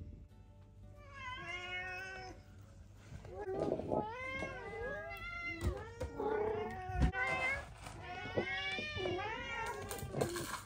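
Several domestic cats meowing over one another in a steady chorus of overlapping calls, starting about a second in: cats begging for food at feeding time. Two sharp knocks sound in the middle.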